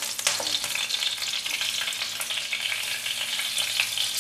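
Bay leaf and green chillies sizzling in hot oil in a non-stick kadai, an even crackle with a few sharp ticks, while a wooden spatula stirs them.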